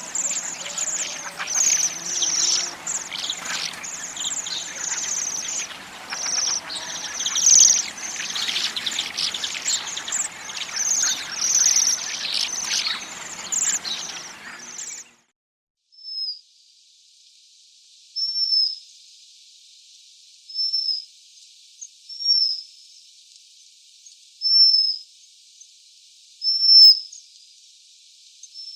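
Waxwings calling: a flock's high, thin trilling calls, many overlapping. About fifteen seconds in it cuts to a quieter recording of single high calls, one roughly every two seconds.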